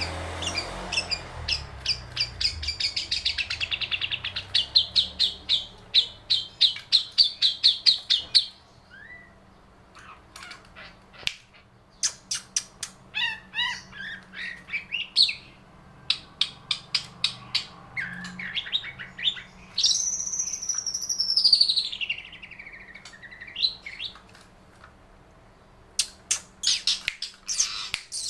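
Long-tailed shrike singing hard, with its learned lovebird calls mixed in. It opens with a fast run of sharp, high chirps, then gives scattered squawky notes and short phrases. About twenty seconds in comes a long note that slides down and then back up.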